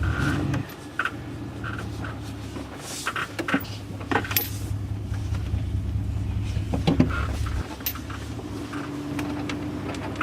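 Vehicle engine running with a low steady hum, over light metallic jingling and clinks, like hitch hardware and safety chains rattling.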